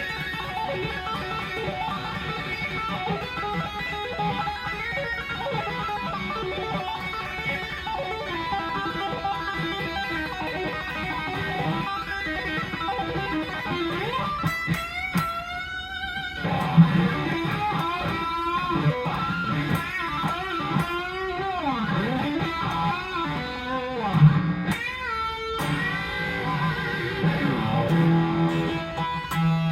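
Electric guitar, an EVH Wolfgang Standard on its bridge pickup, played through an EVH 5150 40-watt combo amp with an MXR Phase 90 phaser on. It plays sustained lead notes with vibrato, and in the middle stretch notes swoop up and down in pitch.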